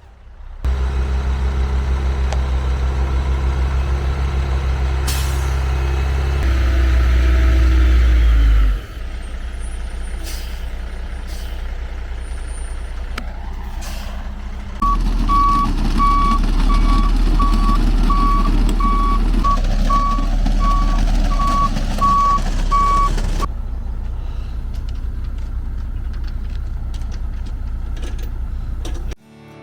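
Heavy vehicle's diesel engine running steadily, its sound jumping to a new level a few times. From about halfway through, a back-up alarm beeps steadily for several seconds, about one and a half beeps a second, as the vehicle reverses.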